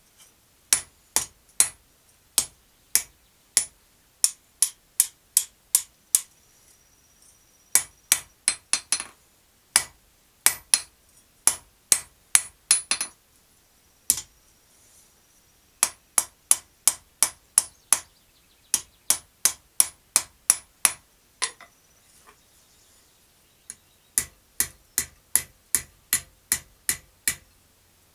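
Blacksmith's hand hammer striking red-hot steel on an anvil wrapped in chain to damp its ring. The sharp blows come in steady runs of about two a second, broken by pauses of one to three seconds.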